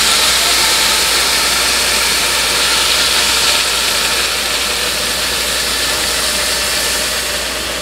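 Hot chicken broth poured into a hot stainless skillet of browned basmati rice, sizzling and hissing steadily as it hits the pan, easing slightly near the end.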